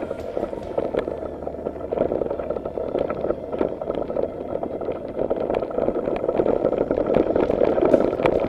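Bicycle riding fast downhill over a dirt trail: a steady rush of wind on the microphone and tyre rumble, with frequent rattles and knocks from the bike over bumps.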